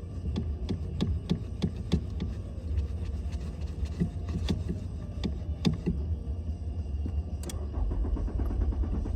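Car engine being cranked on the starter motor without catching, a rhythmic beat of about three compression strokes a second that grows uneven later; the engine is hard-starting. A heavier low rumble comes in near the end.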